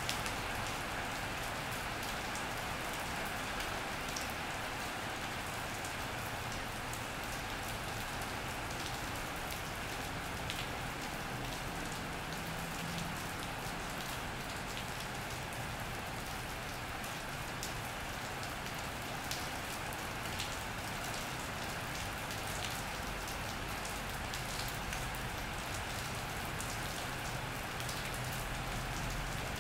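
Steady rain falling on an iron roof and wet paving, a continuous even hiss with scattered sharper drips.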